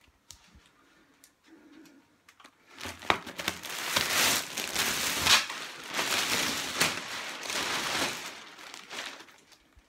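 Plastic mattress packaging crinkling and rustling as it is handled. It starts about three seconds in and lasts about six seconds, full of sharp crackles.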